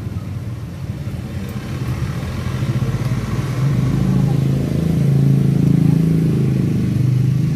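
Traffic: a motor vehicle engine running close by, getting louder from about three seconds in and staying loud.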